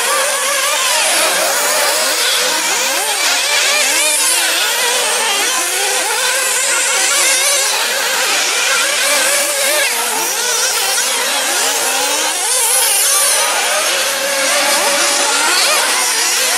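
Several 1/8-scale nitro off-road RC buggies racing, their small two-stroke glow-fuel engines whining and revving up and down over one another.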